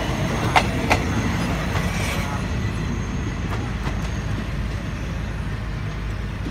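Passenger train carriages rolling along the track. The wheels clack twice over a rail joint about half a second in, then the rumble slowly fades as the last carriage moves away.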